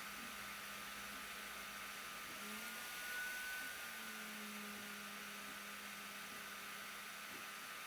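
Sovol SV08 3D printer running: a steady fan hiss with faint motor whines, one of which rises slightly in pitch and swells briefly about three seconds in, followed by a low hum for a couple of seconds.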